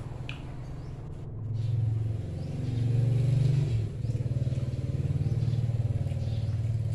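An engine running with a low hum, swelling twice as if revved and dropping off sharply about four seconds in, then running steadily at an even idle.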